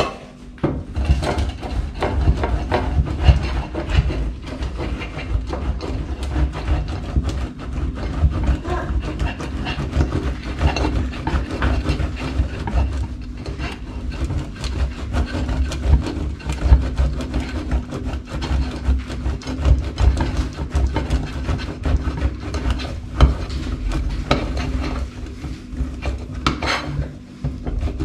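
Block of cheese rasped against a stainless steel box grater standing on a plate, in quick repeated strokes, with a short pause near the end.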